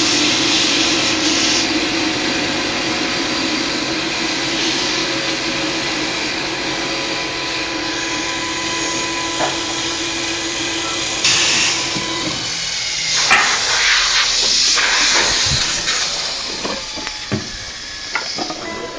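CNC wood turning lathe running, a steady motor hum under the hiss of its two cutters turning the spinning wood. About twelve seconds in the hum stops, giving way to irregular knocks and clatter.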